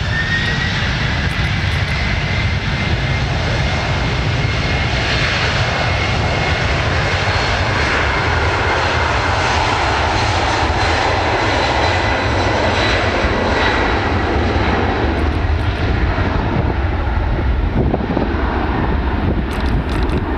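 Boeing 767's twin turbofan engines running loud and steady close by, a dense rush with a whining fan tone that rises at the start and then holds level.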